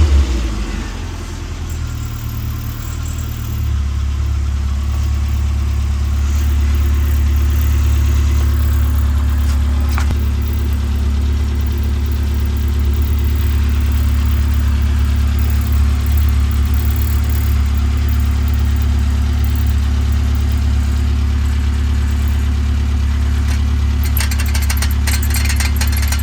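Classic Mini Cooper's four-cylinder A-series engine running at a steady speed: a low, even drone that builds over the first few seconds and then holds steady.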